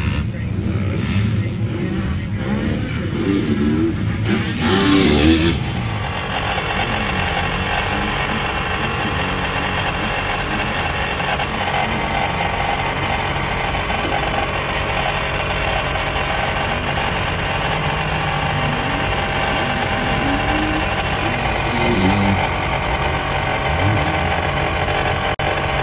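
Motocross dirt bike engines revving up and falling away for the first five or six seconds, and again briefly about four-fifths of the way through, over a steady background hum.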